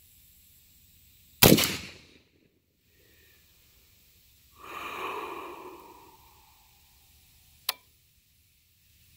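A single rifle shot from an AR-style rifle about one and a half seconds in, the loudest sound, with a short ringing tail. A softer rushing sound follows about three seconds later and fades over a couple of seconds, and a brief sharp click comes near the end.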